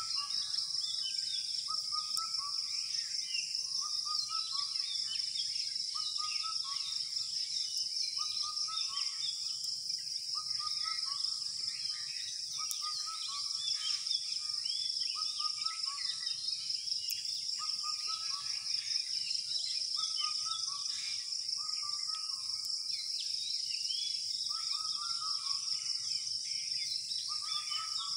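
Dawn chorus: many birds chirping over a steady, high-pitched insect drone, with a short lower call repeated about every second and a half.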